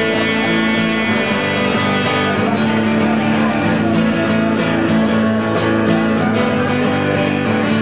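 Acoustic guitar strumming a country-style instrumental break, with no singing.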